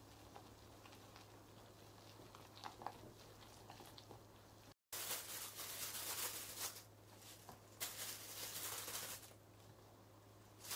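A wire whisk mixing flour batter in a glass bowl, with faint light clicks against the glass. After a cut, two louder bursts of rushing noise, each about a second and a half long.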